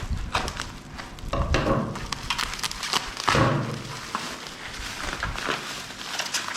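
Phone packaging being handled by hand: a string of small clicks and taps, with two louder rustling or scraping sounds about a second and a half and just over three seconds in.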